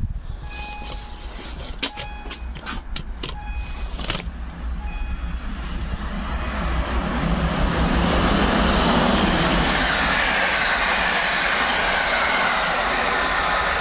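Passenger train approaching and running through the station: the rush and rumble of wheels on the rails builds from about six seconds in and stays loud as the coaches go by. In the first few seconds there are a few short beeps and sharp clicks.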